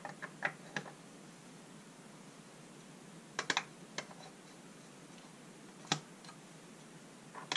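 Metal hex sockets clicking against a painted tin box as they are set into its socket holder: a few quick clicks at the start, a short cluster about three and a half seconds in, then single clicks near four and six seconds and again near the end.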